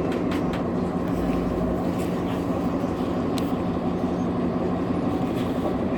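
Nova Bus LFS city bus running, heard from inside: engine and road noise with a steady low drone, and a few light clicks and rattles.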